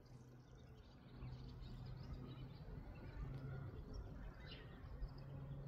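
Faint garden ambience: a low steady hum with a few faint bird chirps.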